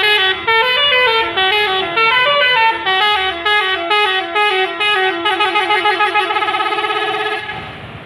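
Bus's Basuri telolet musical horn playing a quick stepping multi-note melody. About five seconds in it turns into a rapid warbling trill for about two seconds, then cuts off suddenly near the end.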